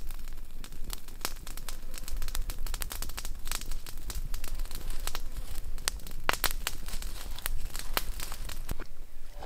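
Open wood fire crackling, with irregular sharp pops, some much louder than others, under a low steady rumble.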